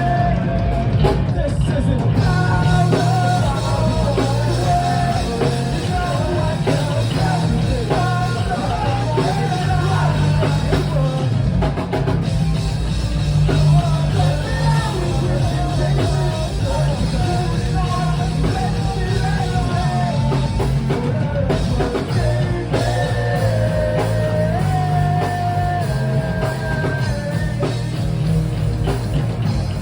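Rock band playing loudly with drums and a lead vocalist singing the melody over heavy bass.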